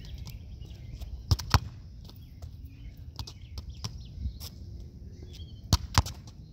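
A soccer ball kicked against a concrete curb, twice: each time a sharp thud of the foot striking the ball, then, about a quarter second later, the ball smacking into the curb.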